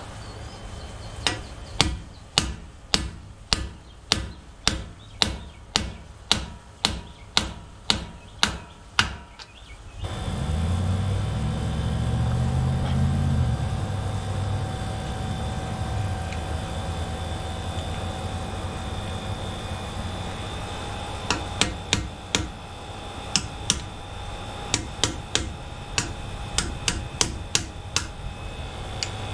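Hammer blows during rear-differential work, struck at an even pace of about two a second. One run of about sixteen blows fills the first nine seconds or so. After a low rumble, a second run begins about 21 seconds in.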